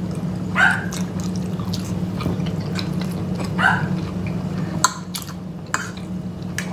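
Eating sounds: chewing and lip smacking, with a few sharp clicks of forks on plates, over a steady low hum.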